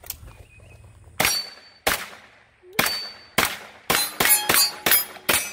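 AK-pattern rifle firing a string of about a dozen shots, spaced out at first and then quickening to a few a second, with steel pepper poppers and hanging steel plates ringing as they are hit.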